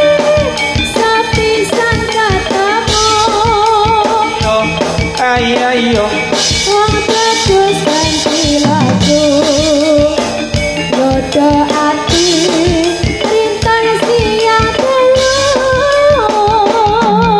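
A woman sings a Javanese langgam song with a wavering, ornamented voice, backed by a live jaranan band whose drums and percussion keep a steady beat, all amplified through a loud sound system.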